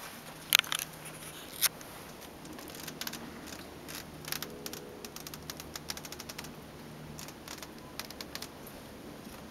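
Handheld camera handling noise: a sharp double click about half a second in and another click near 1.5 s, then a scattering of small ticks and rubs, over a faint low hum.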